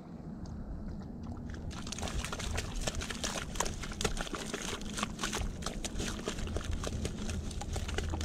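A husky puppy digging in wet mud with its front paws and nose: a rapid, irregular run of scratches and small crunches that grows busier about two seconds in.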